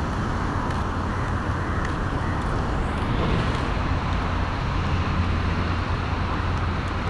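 Steady road traffic: cars passing on a multi-lane road, a continuous rush of tyres and engines that grows a little fuller about three seconds in.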